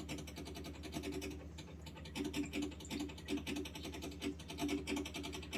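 AO Smith Z2 Pro under-sink water purifier running, its pump giving a steady low hum with a fast, even rattling chatter over it: the noise fault the owner is showing.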